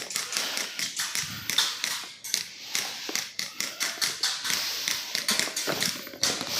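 A run of irregular taps and rustling close to the microphone.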